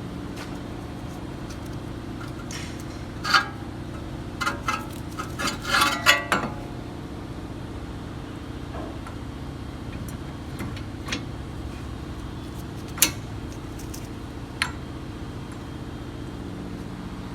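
Metal clinks and knocks as a brake caliper is fitted back over new front brake pads and onto its bracket. A quick cluster of clinks comes about a third of the way in, and a few single clinks follow later, over a steady background hum.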